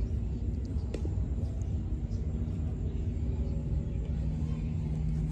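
A steady low rumble with a faint, even engine drone from distant engines, and a single light click about a second in.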